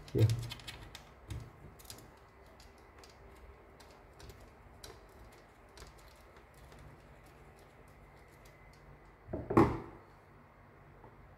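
Small light clicks and rattles of fingers working a ground wire's connector onto its terminal inside a bread maker's plastic housing, with one louder short bump about nine and a half seconds in.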